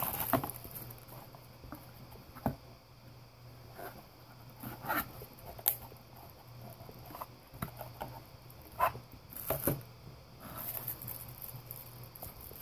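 Plastic bags and bubble wrap crinkling and rustling as parts are handled in a cardboard box, with scattered sharp taps and clicks. A faint steady low hum runs underneath.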